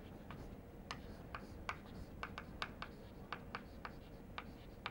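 Chalk writing on a chalkboard: faint, irregular sharp taps and short scrapes as the letters are formed.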